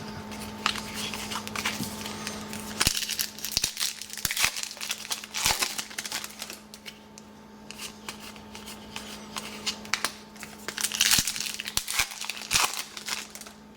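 Trading card pack wrappers crinkling and tearing as packs are opened, in irregular rustling bursts with sharp clicks, over a steady low hum.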